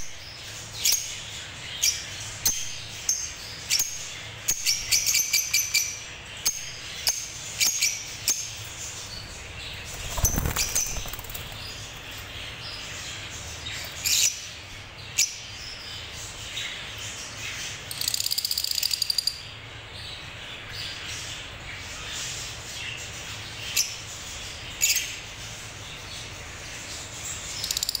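Caged Fischer's lovebirds giving short, shrill chirps, many in quick runs, with a fast buzzy trill about two-thirds of the way through. A brief dull thump near the middle.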